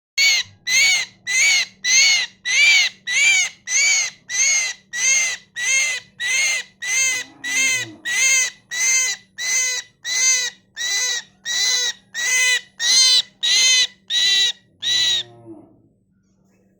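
A myna calling the same harsh, rasping note over and over, about one and a half calls a second, about twenty-odd times, then falling silent about a second before the end.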